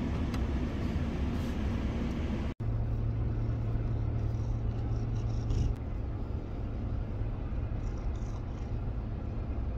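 Vehicle running on the road: a steady engine and road rumble, with a low steady hum for a few seconds after a sudden cut about two and a half seconds in.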